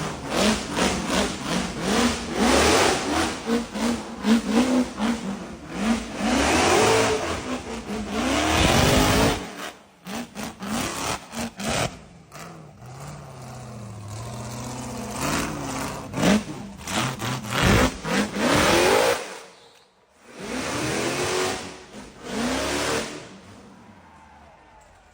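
Off-road vehicle's engine revving hard again and again, its pitch climbing and falling with each burst of throttle. It drops to a lower, steadier note partway through and briefly goes almost quiet a little later.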